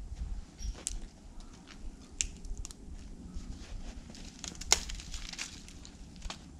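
Dry dead branches and twigs snapping and crackling as they are broken off for firewood: scattered sharp cracks, with the loudest snap just under five seconds in, among steps crunching in snow.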